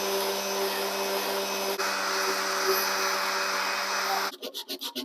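Dual-action orbital sander running steadily while sanding body filler on a truck's cab-corner repair; it cuts off suddenly near the end and is followed by quick, evenly repeated hand-sanding strokes, several a second.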